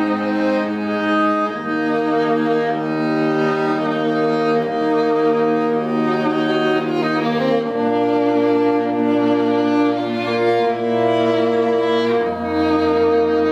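A string trio of two violins and a cello playing a slow piece in long, sustained bowed notes. The cello's bass note changes every few seconds, dropping lower near the end.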